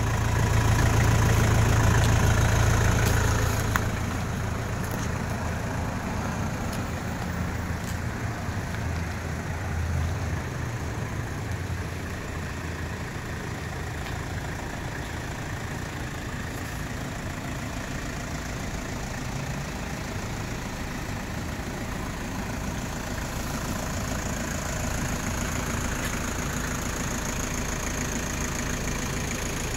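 A motor running steadily with a low hum. The hum is strongest for the first few seconds, then eases about four seconds in and holds even.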